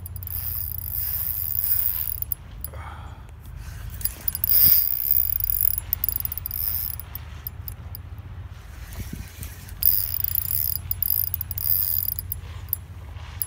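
Spinning reel working under load with the rod bent, in stretches of high, buzzing whir that start and stop several times, over a steady low rumble.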